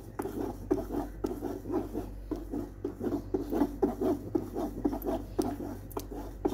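A spoon scraping and stirring wet soybean pulp against a cotton cloth lined in a strainer, pushing the soy milk through: a quick, even run of rubbing strokes, about three a second.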